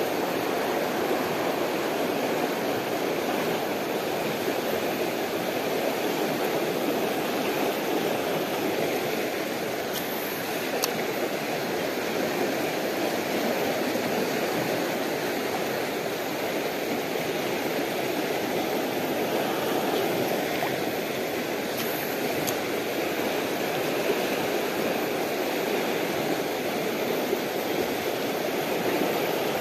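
Fast-flowing river rushing over rocks and shallow rapids: a steady rush of water with no let-up.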